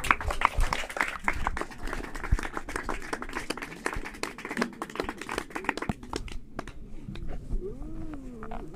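Concert audience clapping, heaviest at first and thinning out after about six seconds. A single voice calls out with a wavering, rising-and-falling hoot near the end.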